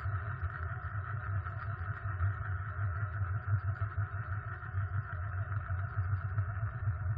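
Dropped sheet-metal tin lid turning on its rim against a hard surface, a continuous fast rattle that holds steady.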